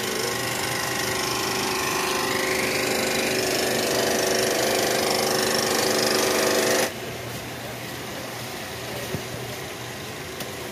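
Power tool working stone, a loud steady machine whine, stops abruptly about seven seconds in, leaving quieter background noise.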